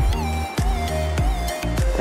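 Background electronic music with a steady low beat and sustained synth notes.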